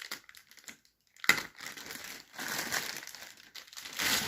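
Packaging crinkling and rustling in irregular bursts as a speaker is handled during unboxing, with a sharp click about a second in.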